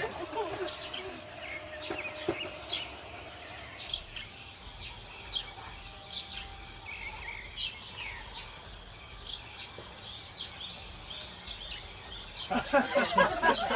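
Small birds chirping: many short, high calls that slide downward, repeated irregularly throughout.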